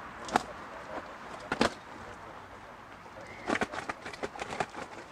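Fishing gear being handled at the water's edge: sharp knocks and clatters, one near the start, a couple about a second and a half in, then a quick run of them from about three and a half seconds on.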